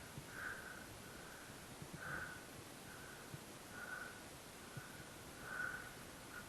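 A person breathing hard in a steady rhythm, a stronger breath about every second and a half with a softer one between, with faint footfalls.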